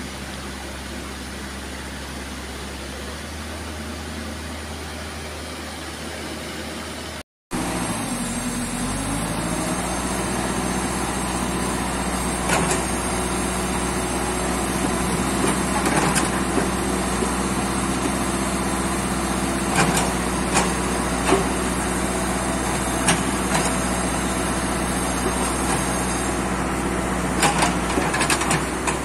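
Mini excavator's diesel engine running. After a cut it runs louder, rising in pitch and then holding steady, with sharp knocks every few seconds as the arm and bucket move.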